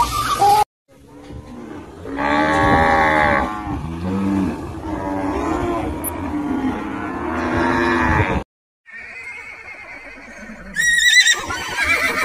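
Water buffalo lowing: a run of long, deep moos one after another, loudest about two seconds in, ending abruptly after about eight seconds. Near the end a different, higher call cuts in.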